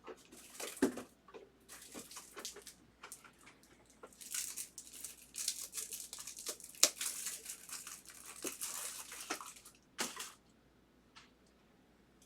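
A foil trading-card pack being torn open and its wrapper crinkled, with the light clicks of cards being handled. The crinkling is densest in the middle and stops near the end.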